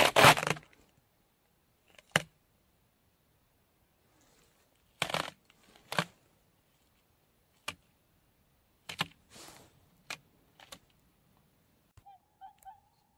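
Scattered crunching steps in crusted snow, spaced a second or more apart. Near the end, faint honking calls of swans begin.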